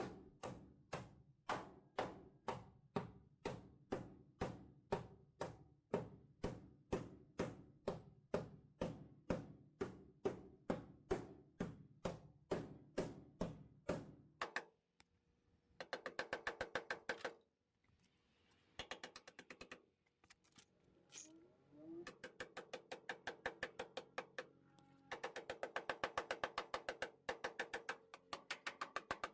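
Quiet background music: a steady, evenly timed beat of woody clicks about twice a second over held notes, changing about halfway through to faster runs of clicks in short blocks with pauses between.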